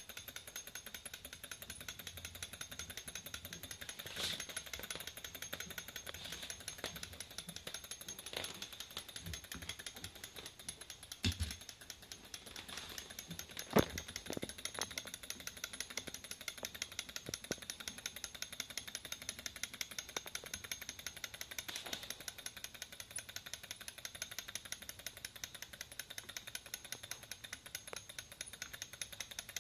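Model Stirling engine tank running under its own power, its flywheel, crank linkage and tracks making a rapid, even clatter as it crawls along. A few louder knocks stand out, the loudest about 14 seconds in.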